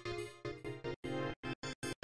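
Outro music: a tune that turns into short, clipped notes with silent gaps between them about a second in.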